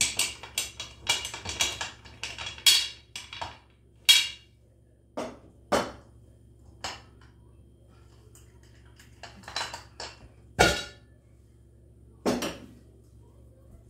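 Aluminium Afghan kazan (pressure cooker) being opened by hand: a quick run of sharp metallic clicks and clatters from the lid and its clamp, then single knocks of metal cookware, the loudest about ten and a half seconds in.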